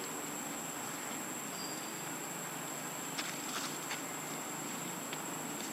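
Steady high-pitched insect drone over outdoor ambience, with a few faint clicks about three to four seconds in.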